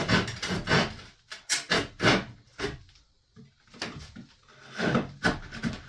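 Wood scraping and knocking against wood in short, quick strokes, with a pause about halfway through, as a subfloor piece is worked into place.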